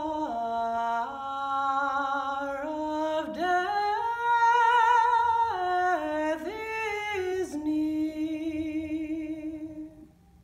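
A woman singing unaccompanied with a wide vibrato. She moves through a phrase of long held notes, rising to the highest and loudest note around the middle, and ends on a long low note that fades out just before the end.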